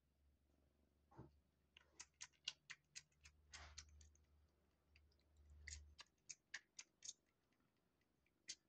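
Faint, quick wet clicks of a kitten suckling at its mother cat's teat, in runs of about four a second. A low steady hum sits underneath and stops about six seconds in.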